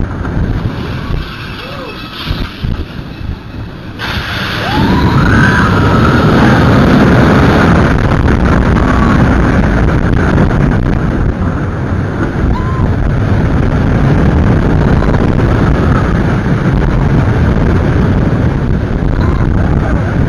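Ride noise aboard a launched steel roller coaster: wind buffeting the microphone over the train's rumble on the track, with a few short yells from riders. The noise drops for a few seconds, then rises again and stays loud from about four seconds in.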